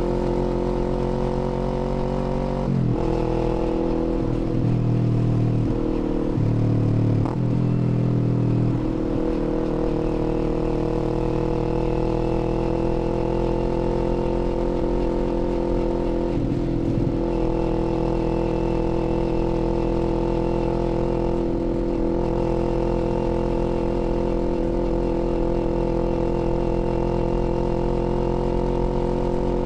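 Kawasaki Z400's parallel-twin engine running while riding; its note shifts and breaks several times in the first nine seconds, then holds steady with brief dips later on.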